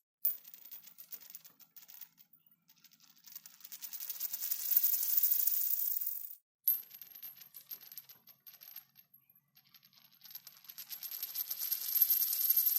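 A coin spun on a hard surface, twice. Each spin starts with a sharp tick and runs quietly with sparse ticks, then becomes a fast rattle that quickens and grows louder as the coin wobbles down. The first spin stops abruptly a little past halfway as the coin falls flat; the second is at its loud, fast rattle near the end.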